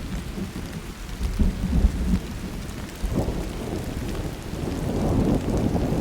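Thunder rumbling over steady rain. One louder rumble comes about a second and a half in, and another builds from about three seconds in.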